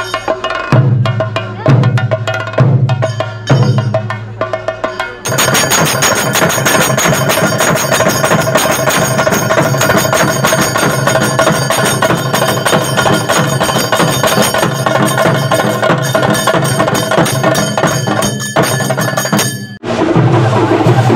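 Kerala temple-procession percussion band (thambolam) playing loudly. It opens with heavy drum strokes about once a second, switches abruptly to a dense stretch of fast drumming with ringing cymbals, and cuts back to heavier drumming near the end.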